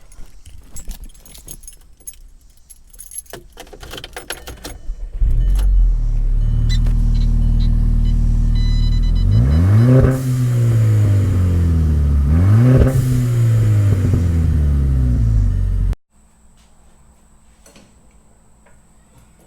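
Keys jangling with small clicks. About five seconds in, the Scion FR-S's 2.0-litre flat-four, breathing through an MXP Comp RS cat-back exhaust, comes in loudly at idle and is revved twice, each time rising and falling in pitch. It cuts off abruptly near the end.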